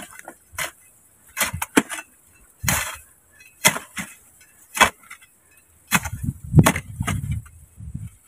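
A metal hoe blade chopping into dry, packed soil in blows about a second apart, followed near the end by a longer stretch of scraping and knocking as loosened earth is dragged.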